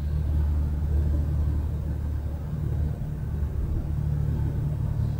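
Steady low rumbling hum of background noise with no speech, level throughout.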